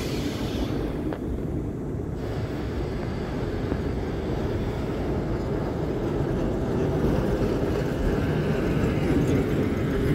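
KTM-1 heritage tram with a KTP-1 trailer running along street rails, a steady low rumble that grows slowly louder as it draws close.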